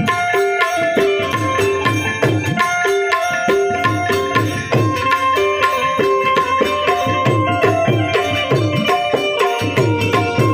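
Instrumental break in a Gujarati devotional bhajan: a harmonium melody of held reedy notes over a steady hand-drum rhythm, the drum's bass strokes bending in pitch.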